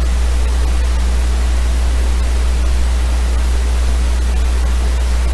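Steady hiss over a strong, constant low hum: the recording's own background noise between narrated lines, with no other sound standing out.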